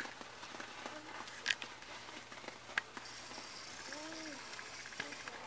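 A lit handheld sparkler fizzing with a faint crackle, the hiss coming in about three seconds in. Two sharp clicks come before it.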